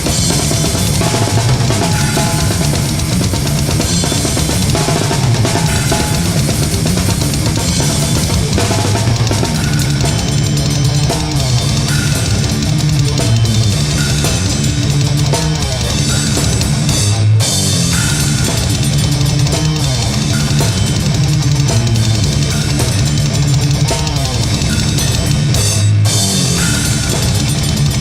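Death/doom metal music: a loud, dense full band led by a drum kit with bass drum, snare and cymbals, playing continuously with two brief breaks about 17 and 26 seconds in.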